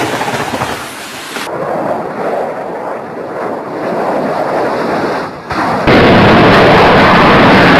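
Rumbling roar of a jet aircraft flying low and crashing. The sound changes abruptly twice between clips, and from about six seconds in it is very loud and distorted.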